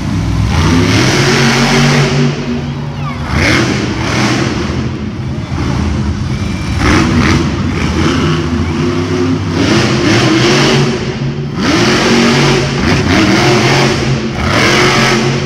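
Monster truck's supercharged V8 engine revving over and over, its pitch climbing and dropping with each burst of throttle.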